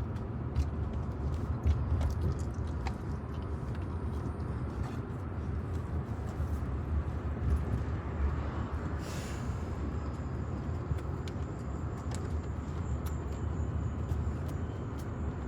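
Steady low rumble of road noise inside a moving car's cabin, with scattered small clicks and a brief hiss about nine seconds in.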